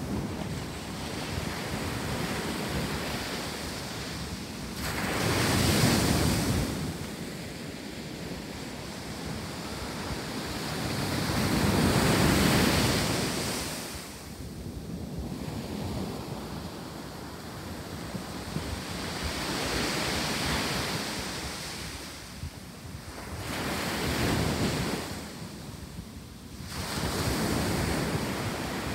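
Ocean surf breaking and washing up on a sand beach, each wave swelling and falling away every several seconds; the biggest come about six and twelve seconds in. Wind rumbles on the microphone.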